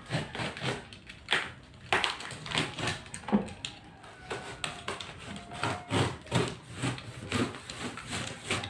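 Hands handling a large cardboard shipping box and picking and pulling at its packing tape: irregular taps, knocks and scratches on cardboard, a few a second.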